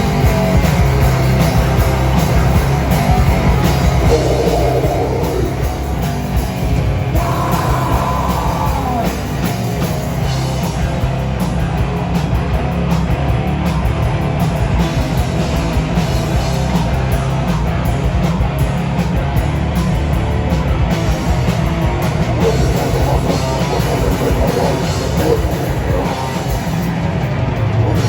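Live band playing loud rock: drum kit, guitars and bass, with a voice singing over it at moments.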